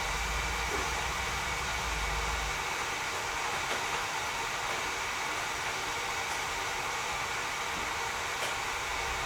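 Tea kettle on the heat, its water rushing and hissing steadily as it nears the boil, not yet whistling. A low hum underneath drops away about two and a half seconds in and returns near the end.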